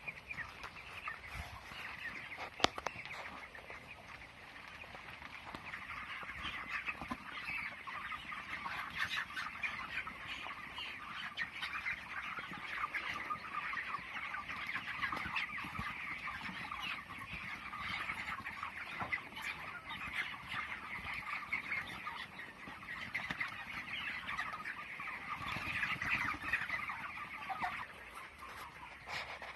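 A flock of 23-day-old broiler chickens calling and clucking together in a continuous, many-voiced chatter. A single sharp click sounds about three seconds in.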